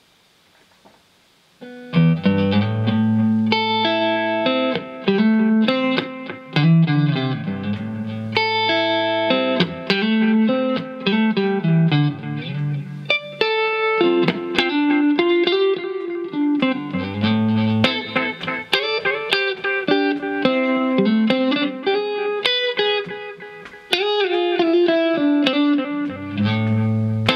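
Electric guitar played through an engaged Caline Ghost Rain reverb-delay pedal. A melody of picked notes over held low bass notes comes in suddenly about two seconds in, after a near-silent start.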